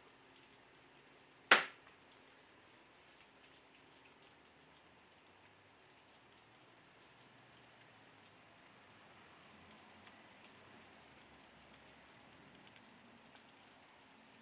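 A single sharp click or knock about a second and a half in, over a faint hiss scattered with tiny ticks.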